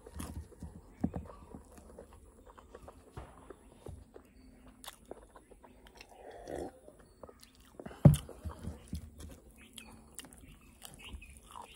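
Close-up mouth sounds of a person eating mutton curry and rice by hand: chewing and wet clicks, with a short sip from a small glass about six seconds in and a sharp knock about eight seconds in.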